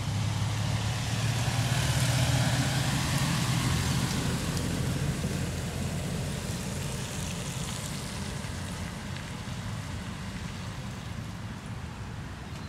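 A Toyota pickup truck drives past and away on wet asphalt: a low engine note and tyre hiss on the wet surface, loudest about two seconds in, then fading steadily as it recedes.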